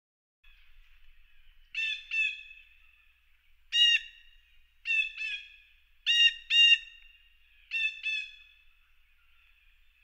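Eurasian jay of the white-faced race giving short, clear calls, nine in all, mostly in quick pairs with gaps of about a second between them. A faint steady high tone runs underneath.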